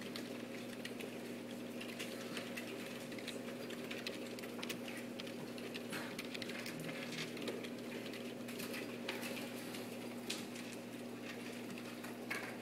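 Keys being pressed on a computer keyboard: scattered, irregular soft clicks over a steady low hum.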